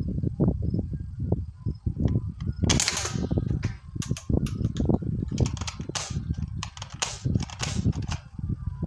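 Airsoft AR-15 rifle firing on semi-automatic: a quick, uneven string of sharp shots a fraction of a second apart.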